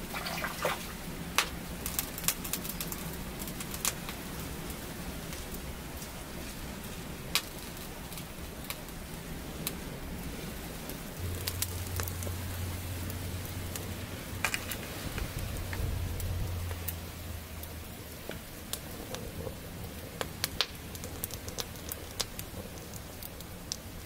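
Light rain pattering steadily, with scattered sharp drips and ticks, and a low rumble from about eleven to seventeen seconds in.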